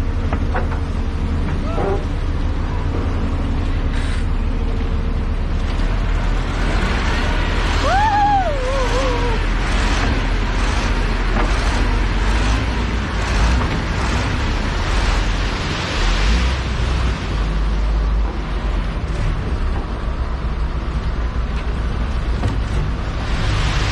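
Heavy construction machine's diesel engine running steadily with a low rumble, with a short pitched sound that rises then falls about eight seconds in.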